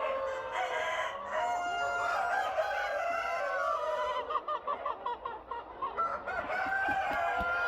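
Several roosters crowing over one another, with hens clucking; a quick run of clucks comes about halfway through.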